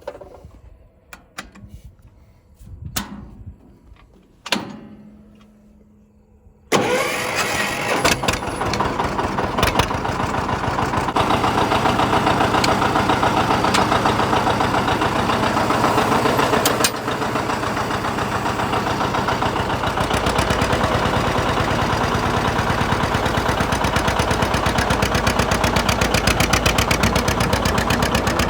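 A few scattered clicks and knocks, then about seven seconds in a 1959 John Deere 730's two-cylinder diesel engine comes in suddenly and runs steadily with a rapid, even beat. It gets a little deeper from about twenty seconds in.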